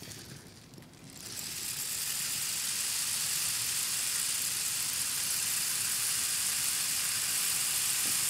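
Rainstick filled with mung bean seeds, tipped so the seeds trickle down through the tube. A steady rushing hiss like rain or running water comes in about a second in and carries on as one long, even roll.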